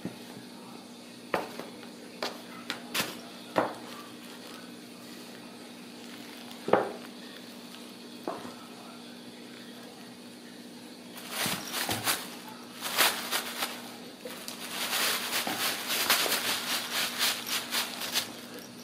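Tissue paper and a paper gift bag rustling and crinkling as kittens paw at and climb into them: a few separate rustles and taps in the first half, then nearly continuous crinkling from a little past the middle until near the end.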